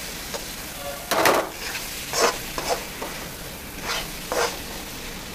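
Metal spoon stirring and scraping chopped boiled egg and onion-tomato masala around a metal kadai, a scrape about once a second, over a steady sizzle of frying.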